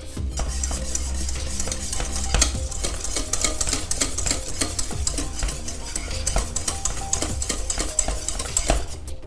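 Wire whisk beating thickening pastry cream in a stainless steel saucepan, with fast clicking and scraping of the wires against the pan's sides and bottom.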